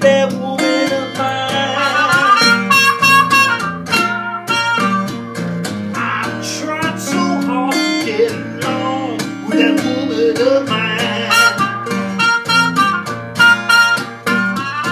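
Live acoustic blues: an open-tuned acoustic guitar strummed and picked under a man singing, with a trumpet playing lead lines. The trumpet drops out in the middle while the voice and guitar carry on, and comes back in near the end.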